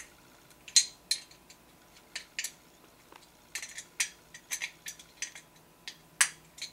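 Small metal clicks and clinks of a hex key working the clutch housing bolts on a CY 23cc two-stroke engine's crankcase as they are tightened down in a cross pattern. The sharp ticks come at irregular intervals, some in quick clusters, with the loudest about a second in and near the end.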